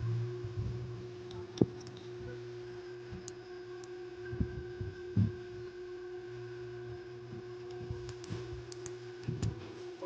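A steady electrical hum with a few light clicks and taps from small phone parts and tools being handled.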